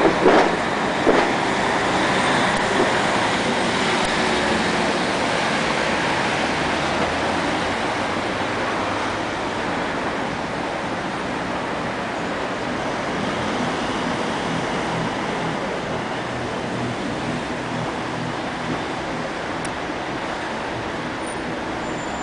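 Mercedes-Benz Travego coach's diesel engine running as the coach passes close by and drives away, slowly fading into steady street traffic noise. A few loud bumps come in the first second.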